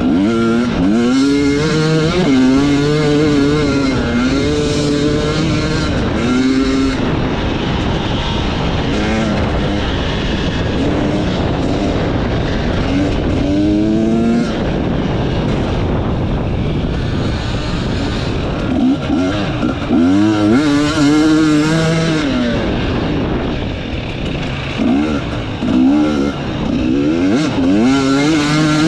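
Enduro motorcycle engine revving up and down while riding off-road, its pitch climbing and dropping repeatedly, with stretches of noisy rush where the engine note fades back.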